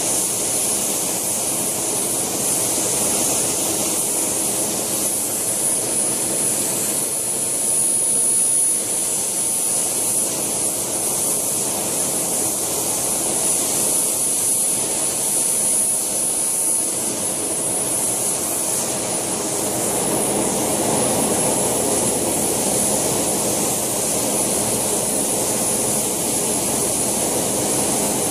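JetCat PHT2 model helicopter turbine running steadily, a constant high-pitched whine over rushing exhaust and rotor noise, as the scale Alouette II model helicopter hovers. The lower rushing part grows somewhat louder about two-thirds of the way through.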